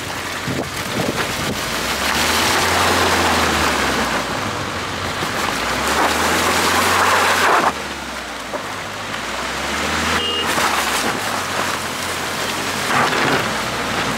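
Nissan Evalia van's engine revving in surges while its tyres spin on snow and black ice without grip, a loud hissing rush of slush and ice under the wheels. The longest surge cuts off suddenly about halfway through, with two shorter ones after.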